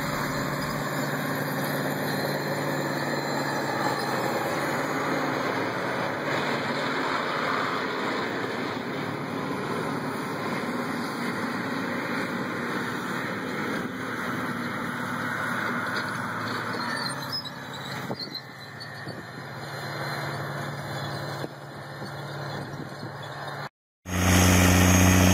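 John Deere four-wheel-drive tractor's 15.7-litre eight-cylinder diesel running steadily under load as it pulls a field cultivator, growing fainter past the middle. Near the end the sound cuts off abruptly and a louder, deeper engine takes over: a Big Bud tractor's 16-cylinder Detroit Diesel 16V92T.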